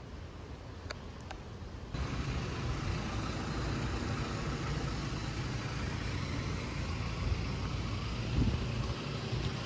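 Street traffic noise: a steady rumble of passing cars. About two seconds in it abruptly gets louder and fuller.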